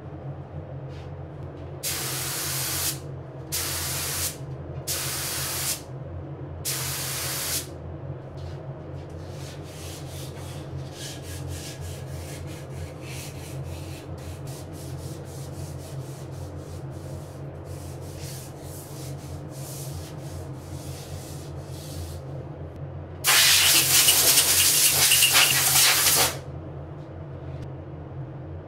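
Spray finish hissing out in four short bursts, then a run of light, quick scratchy hand-sanding strokes as the dried coat is denibbed, then one long burst of spray of about three seconds for the final coat. A steady low hum runs underneath throughout.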